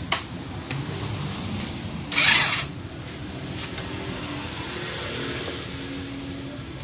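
Repair-work sounds: a few sharp metal clicks and, about two seconds in, a loud half-second hiss, over a steady mechanical hum.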